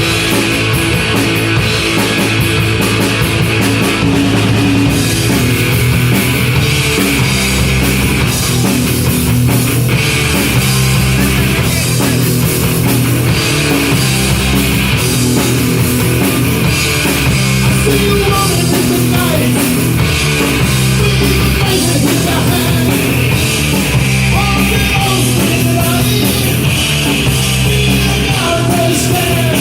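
Rock band playing punk rock, with drum kit and loud, unbroken instruments.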